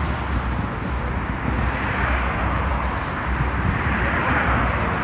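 Steady outdoor ambient noise with a low, fluttering rumble. There are no distinct bangs or pops.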